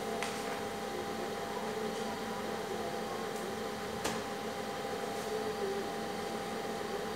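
Steady machine hum, like a fan or air conditioner, with a few constant tones, broken by two short clicks, one just after the start and a sharper one about four seconds in.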